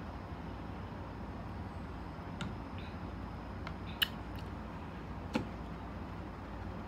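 Small plastic drink bottle set down on a table with a sharp knock about four seconds in, then a lighter knock about a second and a half later, over a steady low room hum.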